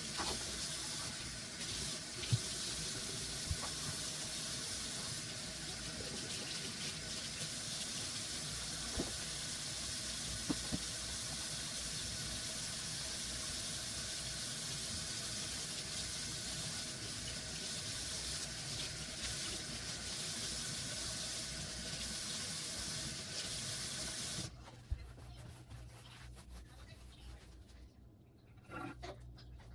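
Water running steadily from a tap, with a few small knocks, shut off suddenly near the end.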